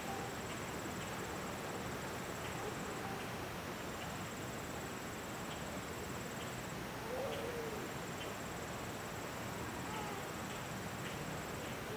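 Outdoor ambience: a high, thin insect trill that breaks off briefly every three to four seconds, over a steady hiss. A faint short call comes about seven seconds in.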